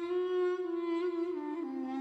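A long wooden wind instrument, held vertically and blown end-on, playing a slow hymn melody: one held note that steps down twice to a lower note about a second and a half in.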